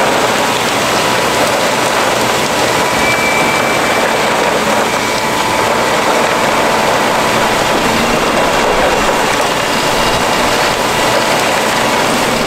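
Concrete pump truck running loudly and steadily while pumping concrete, with the ready-mix truck running alongside as it feeds the pump's hopper.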